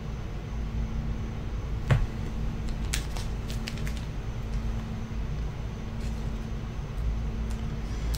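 Steady low room hum with a few light clicks and taps from handling, the clearest about two seconds in.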